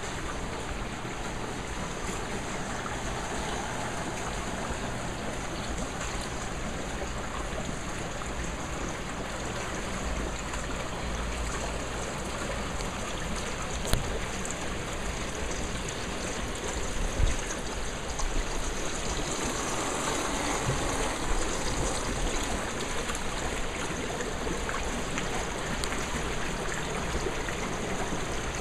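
Water rushing and bubbling steadily through a homemade pool filtration system, with an aerated IBC tote filter full of churning Kaldnes media and water pouring back into the pool. A couple of brief knocks come about halfway through.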